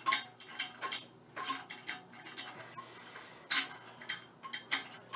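Light, uneven metallic clicks and taps of a nut being turned onto a toilet bolt by hand and tool.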